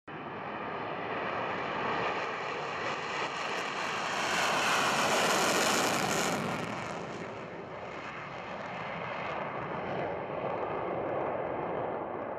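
Twin-engine fighter jet taking off on afterburner: engine noise that builds to its loudest about five to six seconds in, then eases as the jet climbs away.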